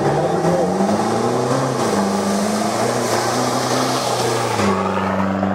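Off-road rally vehicle engine running, its pitch rising and falling, over a hiss. About four and a half seconds in, the hiss drops away and the engine holds a steady note.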